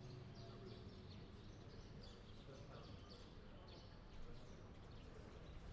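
Near silence: faint background ambience with small birds chirping softly.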